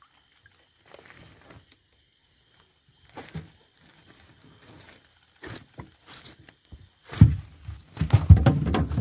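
Nylon gill net and a plastic sack rustling and crinkling as a large rohu is worked free by hand. About seven seconds in come loud thumps and knocking as the fish is brought down into the boat's hull.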